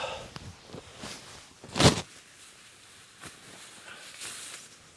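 Handling noises: soft rustling with a single sharp knock just before two seconds in and a fainter click later.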